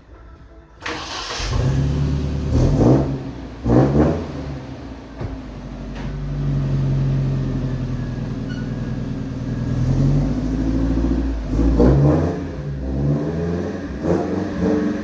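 Bakkie engine starting about a second in, then revved in several short blips with one longer hold at raised revs, heard through an exhaust whose leaking flange joint at the muffler, missing its gasket, has been sealed with Firegum.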